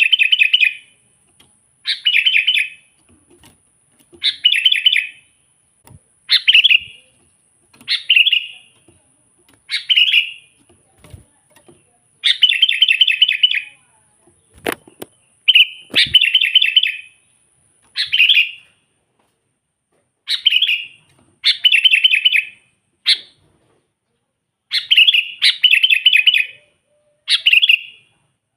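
Sooty-headed bulbul (kutilang) singing: short, bubbling phrases of quick notes, repeated every second or two.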